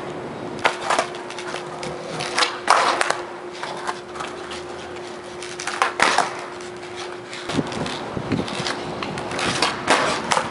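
Skateboard on flat concrete: wheels rolling, with several sharp clacks of the tail popping and the board landing as pop shove-its are tried, spaced a few seconds apart.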